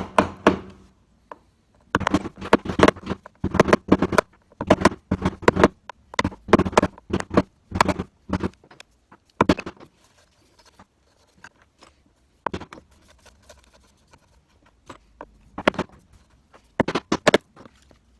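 Stanley knife blade scoring through thick old paint around a metal door hinge: a run of short scratching strokes, close together for several seconds, then fewer and more spaced out near the end.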